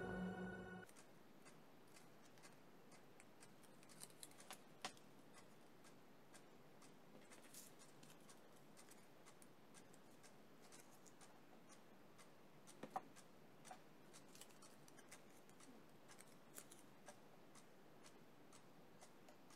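A music track stops within the first second. Then near silence with faint, scattered light clicks and rustles of paper flowers being handled and pressed onto the rim of a wall clock.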